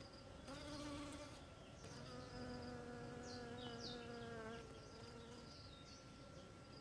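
Honeybees buzzing close by as they forage for nectar: a faint, low pitched hum that swells as a bee comes near and fades as it moves off, once about half a second in and again from about two seconds to four and a half.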